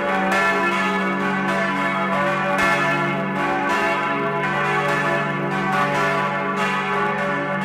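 Full peal of four swinging bronze church bells, cast by Hamm of Staad and tuned to C-sharp, E, F-sharp and G-sharp, heard close up inside the bell chamber: their strikes overlap continuously over a sustained low hum.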